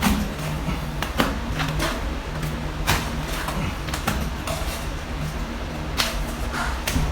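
Short scraping and knocking strokes of hand-tool work on a wall, at irregular intervals about one or two a second, over a steady low hum.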